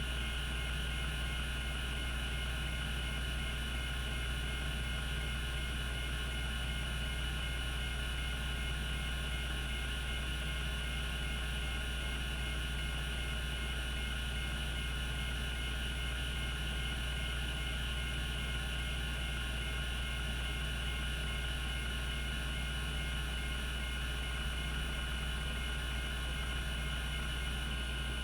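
Cogito Systems CG-912 hard disk spinning at its 3600 rpm, a steady hum with a high whine over it and no seek clicks.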